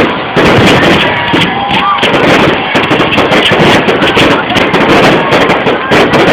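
Aerial fireworks going off in a dense, rapid string of bangs and crackling pops with no pause, loud throughout.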